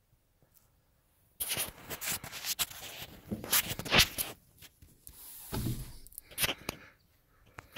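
Irregular rustling, scraping and sharp clicks of a handheld phone being handled and moved about inside a car cabin, starting about a second and a half in.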